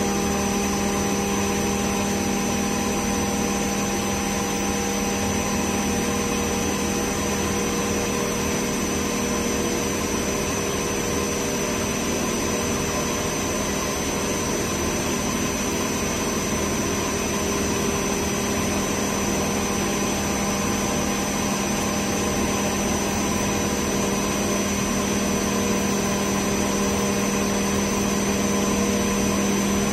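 MultiCam 5000 series CNC router milling 3/4-inch aluminum plate with a 1/2-inch spiral O-flute bit. It makes a steady hum with a high whine over a constant rush of noise.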